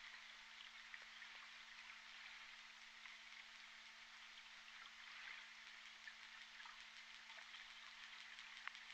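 Faint underwater ambient noise picked up by a hydrophone: an even crackling hiss with scattered tiny ticks over a steady low hum, and one sharper click near the end.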